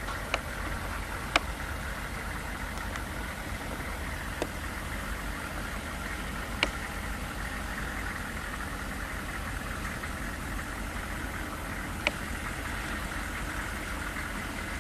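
1998 Hummer H1's V8 turbodiesel running steadily at low revs as the truck crawls down a steep dirt mound, with a few sharp clicks scattered through.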